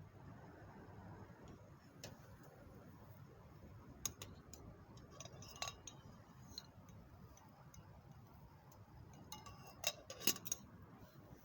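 Tableware clinking during a meal: a few light, ringing clinks, with a quick cluster of them near the end.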